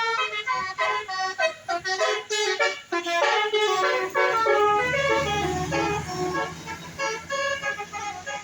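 Bus 'telolet' musical air horn playing a fast tune of short notes at different pitches. A bus engine rumbles low underneath about halfway through as the bus passes.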